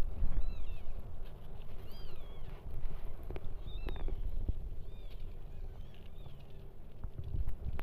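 Newborn kittens mewing: about five short, thin, high-pitched squeaks, each rising and falling, over a low rumble.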